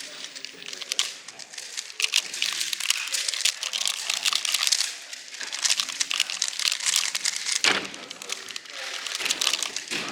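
Dense, rapid clicking and clacking of puzzle cubes being turned, over a background murmur of voices.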